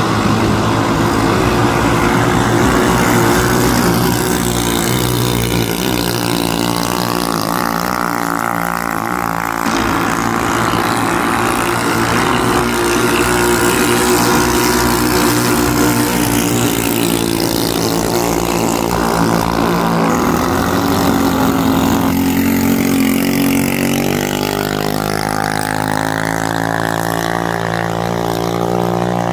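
Engines of composite vỏ lãi long-tail racing boats running hard, several droning together, their pitch shifting up and down as the boats race.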